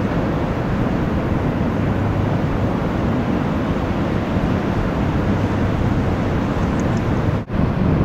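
Steady rushing noise of breaking surf and wind buffeting the microphone. It cuts out for a moment near the end.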